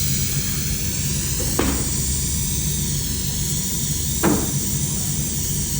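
Airbrush spraying thinned leather paint with a steady hiss over a low compressor hum, broken by two short clicks, one about a second and a half in and one about four seconds in.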